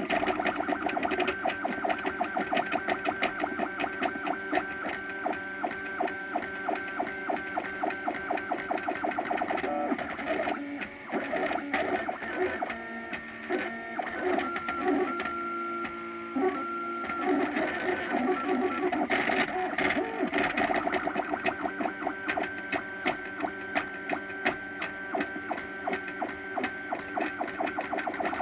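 Stepper motors of a MakerBot Thing-O-Matic 3D printer whining in rapid back-and-forth pulses as the print head lays down plastic. In the middle the motors change to a few different steady pitches held in turn before the quick back-and-forth resumes.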